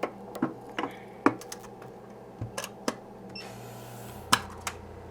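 Clicks and taps of a phone being handled in a screen laminating machine, over a steady machine hum. About three and a half seconds in, a hiss of air starts, joined by a low hum, as the laminator runs.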